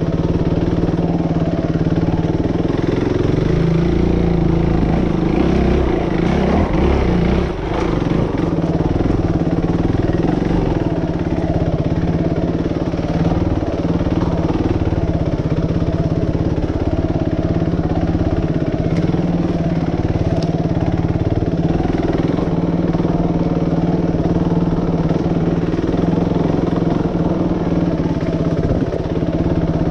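Suzuki RMX450Z dirt bike's single-cylinder four-stroke engine running at low revs on a slow trail ride. Its revs rise and fall unevenly for a few seconds early on, then hold steady.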